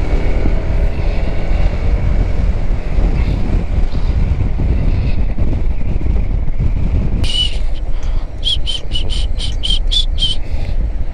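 Wind rush and road noise over the Kymco Xciting S 400's single-cylinder engine running as the scooter is ridden in city traffic. Near the end comes a run of short, high pips, about four a second.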